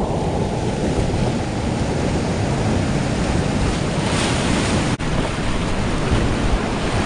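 Whitewater river rapids rushing close by, a steady loud wash of water with a heavy low rumble on the microphone. A brief break about five seconds in, where the footage is cut.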